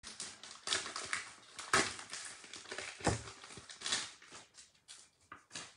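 Irregular crackling and rustling broken by sharp clicks, thinning out near the end.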